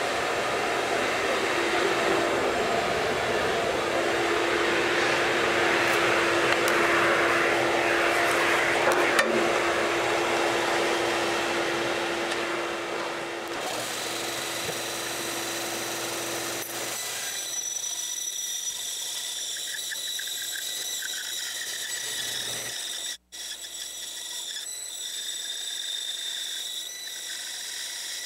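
Bandsaw running and cutting through a thick laminated block of maple and poplar, a steady machine noise with a steady hum. About halfway through it turns quieter and thinner with some high whining tones, and near the end it cuts out briefly.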